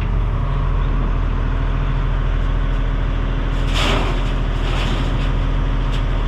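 A loader dumps a small scoop of AB gravel into a trailer over steady engine running: a brief rushing burst about halfway through, then scattered rattling as the stones settle.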